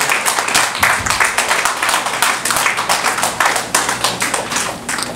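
Small audience applauding, the individual hand claps distinct, thinning out near the end.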